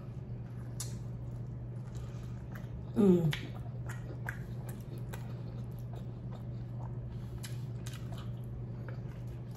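Close-miked chewing and biting on barbecue-sauced ribs, gnawing meat off the bone, with many small wet mouth clicks and smacks. About three seconds in there is a brief falling vocal sound from the eater. A steady low hum runs underneath.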